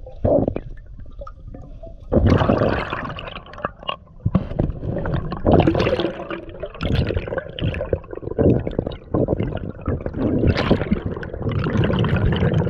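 Air bubbles bubbling and gurgling underwater around the microphone, in repeated surges of a second or two with quieter gaps between.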